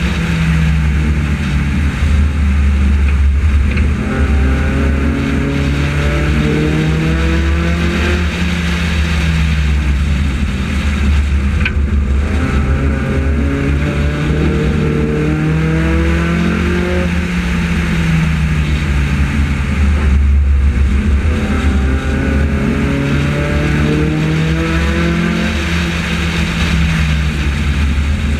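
Four-cylinder engine of a front-wheel-drive Honda F4 race car heard from on board under racing load, its pitch climbing on each straight and dropping back into each turn, over and over as it laps the oval.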